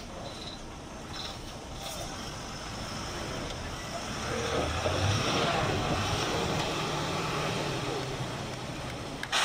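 Ashok Leyland tanker truck's diesel engine working hard under load as the heavy truck manoeuvres. It grows louder about four seconds in and holds there.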